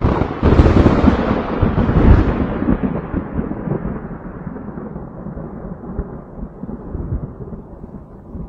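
Thunder sound effect: a sudden loud clap, then a long rolling rumble whose crackle fades away over several seconds, leaving a low rumble.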